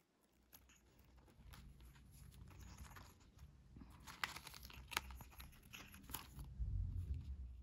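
Paper and clear plastic sticker sheets rustling and crinkling as a sticker book is leafed through and its stickers handled, in many small crackles, with a soft low handling bump near the end.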